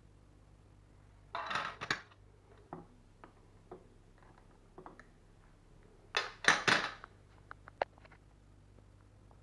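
Handling noise of hard objects: two short spells of clattering, about a second and a half in and again around six seconds, with scattered light knocks and clicks between them.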